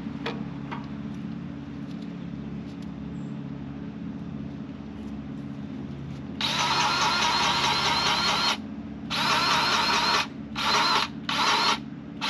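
Battery-powered grease gun motor whirring in bursts, pumping grease into a grease fitting on the aerator's spoon shaft: one run of about two seconds beginning midway, then a one-second run and three short pulls. A steady low engine hum runs beneath.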